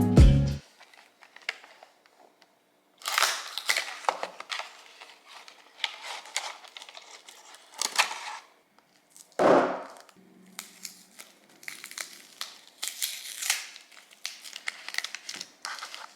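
Irregular bursts of rustling and crinkling with scattered sharp clicks, as something is handled at close range. Background music cuts off about half a second in.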